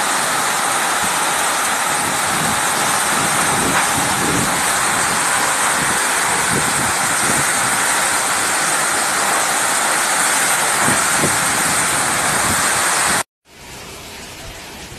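Heavy rain pouring down as a loud, steady hiss. About thirteen seconds in it cuts off, and after a brief break a quieter, steady rain sound follows.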